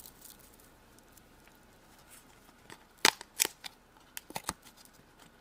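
A few sharp little clicks and taps of hands and small tools working modelling clay on a tabletop, clustered about three to four and a half seconds in.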